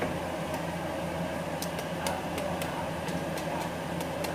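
Sharp, irregular clicks and crackles as metal tongs turn freshly air-fried, crisp-skinned pork belly pieces in the air fryer basket, over a steady low hum.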